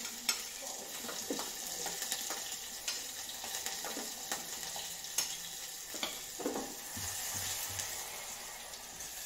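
Chopped garlic and green chillies sizzling in hot mustard oil in a stainless steel pot as a tadka, with a steady hiss and a spoon clicking against the pot several times.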